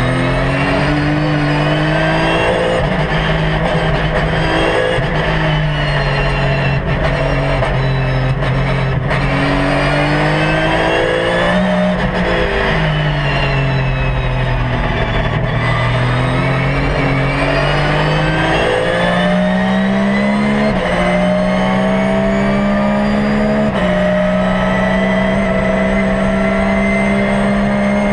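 Porsche 911 GT3 R's naturally aspirated flat-six racing engine heard from inside the cockpit, its revs repeatedly falling and rising as it slows and accelerates through corners. Toward the end it climbs in steps through upshifts and then holds a steady high pitch.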